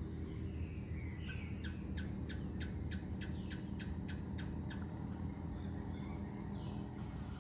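A bird calling a rapid run of about a dozen short, sharp notes, roughly three a second, starting about a second in and lasting some three seconds, over a steady low rumble of background noise.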